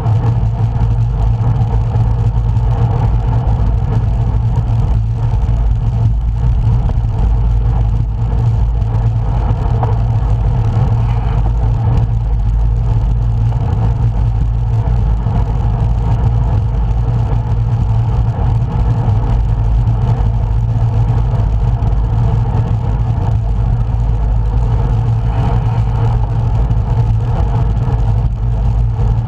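Steady low wind and road rumble on the microphone of a camera riding along on a road bike, unbroken throughout.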